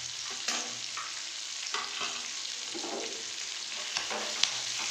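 Capsicum, onion and slit chillies sizzling in oil in a frying pan, with a wooden spatula scraping and knocking against the pan as they are stirred, about once a second. A sharp tap near the end.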